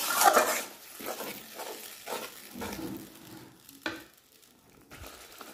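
A metal spatula stirring and scraping a thick tomato-and-spice masala as it sizzles in a metal kadai, the masala being fried down (bhuna). It is loudest in the first second, then quieter, with one sharp click about four seconds in.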